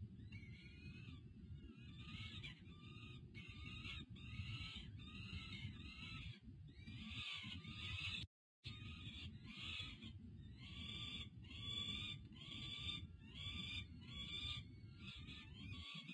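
Young peregrine falcons begging while being fed by their mother: short high calls repeated about twice a second, over a steady low rumble. All sound drops out briefly a little past halfway.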